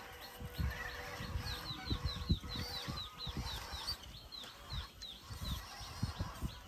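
A bird calling in a fast run of short, falling chirps, about five a second for a few seconds, over irregular low thuds and rumble.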